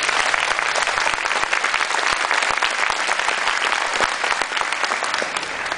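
Audience applauding: dense, steady clapping from many hands that eases off a little near the end.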